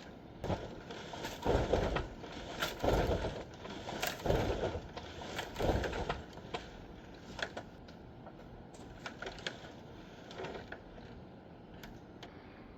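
Demolition work on a structure: about five heavy, irregular knocks and crashes in the first six seconds, then lighter scattered clicks and taps.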